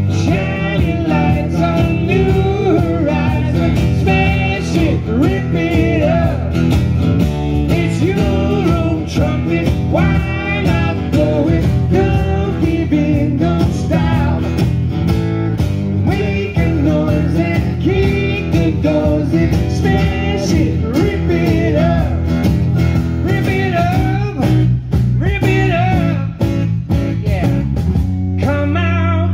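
Live acoustic rock band: a male lead vocal singing over two strummed guitars, one a steel-string acoustic.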